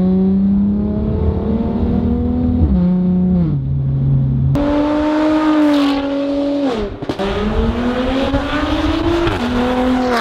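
Mercedes-AMG C43 (C450) 4MATIC twin-turbo V6 through an Armytrix valved exhaust, under hard acceleration. Its pitch drops at several gear changes and climbs again near the end.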